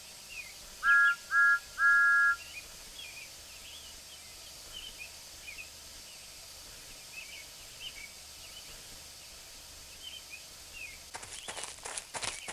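Steam locomotive whistle giving two short toots and one longer toot, over birds chirping. Near the end a quick run of sharp, noisy strokes begins.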